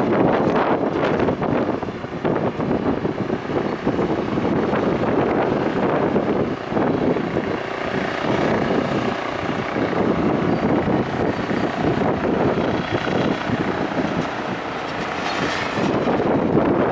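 Strong wind buffeting the microphone: a loud, rough roar that surges and eases unevenly.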